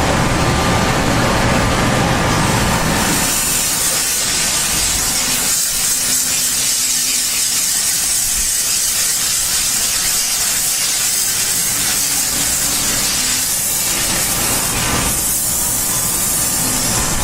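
Dry vapor steam cleaner jetting steam in a steady, loud hiss, with a low rumble underneath for the first few seconds.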